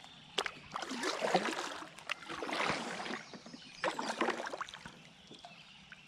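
Kayak paddle strokes in river water: three splashing pulls, about a second and a half apart, with a few light clicks between them.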